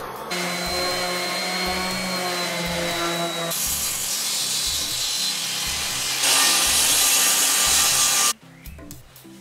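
A handheld power tool runs over a wooden board with a steady motor hum. Then a Bosch table saw runs and cuts through a wooden board, loudest in its last two seconds, and cuts off suddenly about eight seconds in, leaving soft background music.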